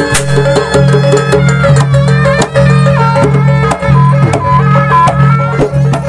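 Live jaranan accompaniment: a Javanese traditional ensemble of drums and tuned percussion playing a fast, repeating pattern over a steady low note, with a melody line on top, played loudly for the barong dance.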